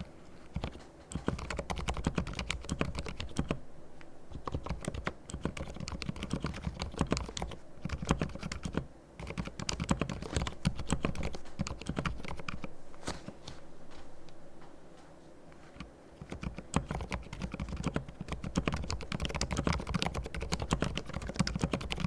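Typing on a Durgod and Thinkway mechanical keyboard with fully lubricated silent red linear switches: runs of fast, muted keystrokes broken by short pauses.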